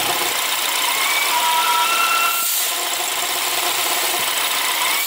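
BMW F10 528 engine idling with a whistle, the sound of air being sucked into the crankcase because the diaphragm of the crankcase-ventilation separator (pressure control valve) is torn and intake-manifold vacuum pulls on the crankcase. The whistle jumps between several pitches and comes and goes, strongest from about one to two and a half seconds in, over a steady hiss; it is a severe case.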